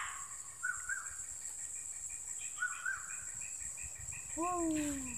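Outdoor insect drone, a steady high hiss of crickets or cicadas, with a few short bird chirps and, about four seconds in, one short falling call.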